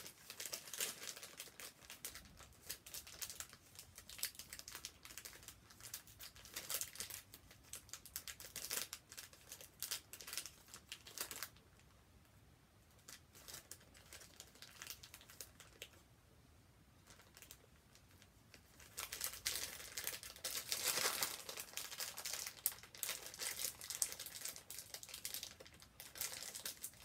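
Clear plastic bag crinkling and rustling as it is handled and pulled at to open it. The crackling comes in bursts, with a quieter lull about halfway through before it picks up again.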